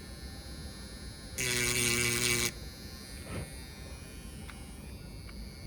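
A small handheld electric tool buzzing against the circuit board for about a second, with an even, motor-like buzz. Before and after the buzz there is only a faint hum and a few light ticks.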